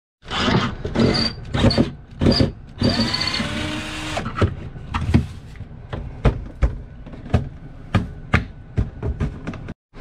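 Irregular knocks, clunks and scraping as a heavy RV refrigerator is worked loose and slid out of its wall cabinet, with a longer squealing scrape about three seconds in.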